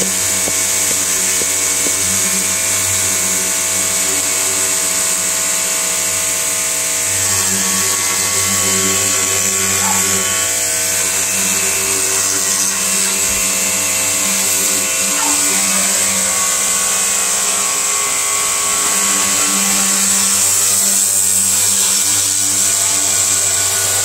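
Pressure washer running steadily, its motor humming under the loud hiss of the high-pressure water jet spraying onto seatbelt webbing.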